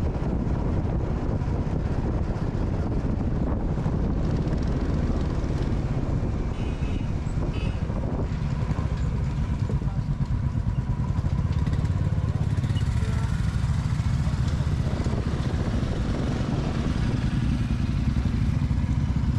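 Several motorcycles running on the road, a continuous low engine rumble that grows louder and steadier about two-thirds of the way in.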